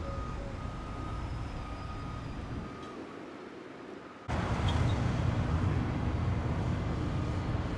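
Outdoor road traffic noise. About four seconds in it cuts abruptly to louder, closer vehicle rumble with a steady low engine hum.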